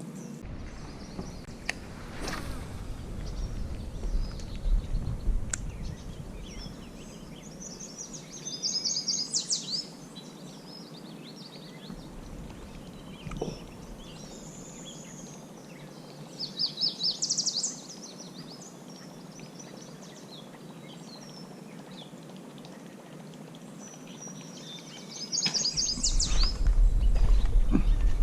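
A songbird sings a short, fast trilled phrase three times, several seconds apart, over a low rumble and a couple of sharp clicks.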